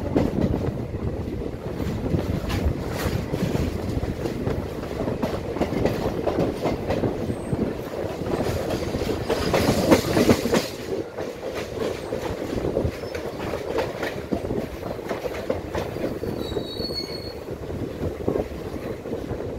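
Moving passenger train heard from the open coach door: wheels rumbling and clattering over rail joints and points, loudest about halfway through as the coach crosses the pointwork into the station. A short high wheel squeal comes near the end.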